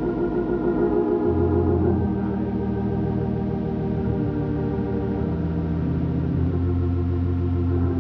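Organ playing slow held chords, with the bass note shifting every second or few.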